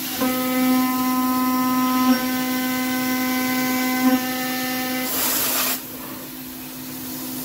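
PrintNC CNC router spindle running steadily while an 8 mm three-flute end mill takes finishing passes along the walls of a 6061 aluminium pocket, giving a ringing, multi-pitched cutting tone on top of the spindle whine, with small jolts about two and four seconds in. About five seconds in the cutting tone stops under a short hiss, and then only the spindle is heard.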